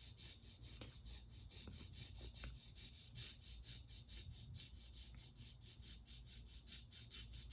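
Steel blade of a posterior sickle scaler rubbed up and down on a water-lubricated sharpening stone: faint, quick, even scraping strokes, about four to five a second, as the edge is sharpened from heel toward tip.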